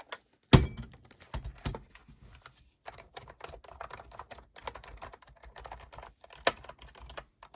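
Typing on a wireless typewriter-style keyboard with round retro keycaps: a quick, irregular run of soft key clicks, with a louder knock about half a second in. The keys sound good and quiet, not very clicky.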